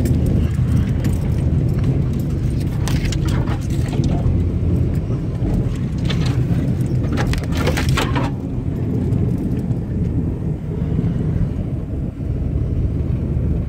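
Vehicle engine and tyres on a snowy road, a steady low rumble heard from inside the cab as it drives slowly. A few clusters of brief crackling noises come in the first eight seconds.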